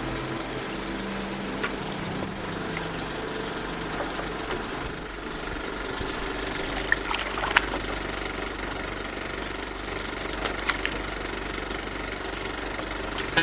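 A canoe being paddled: a steady low rush of noise with a few light knocks of the paddle against the hull, the sharpest about seven seconds in.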